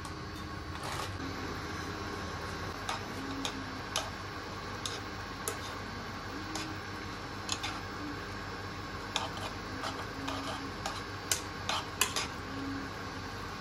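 Chopsticks clicking and scraping against a non-stick pan as instant noodles are stirred in boiling water: about fifteen light taps scattered through, closer together near the end, over a steady background of boiling water.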